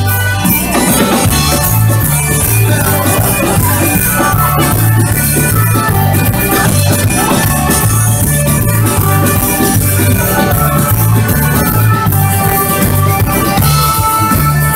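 Live folk band playing over a PA: a drum kit and bass keep a steady beat under melodic instruments, the line-up including organetto accordions, keyboard and guitars.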